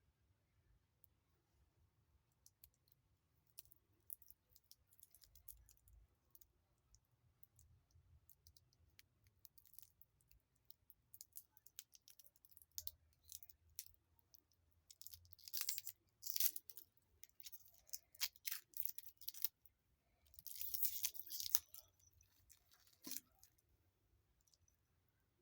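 Handling noise from a wristwatch and its packaging: scattered light clicks and crinkling, with two louder crinkling bursts in the second half.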